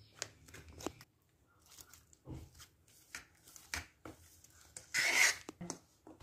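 Spoon scraping and mashing butter and cocoa powder together in a stainless steel bowl: scattered clicks and scrapes against the metal, with a longer, louder scrape about five seconds in.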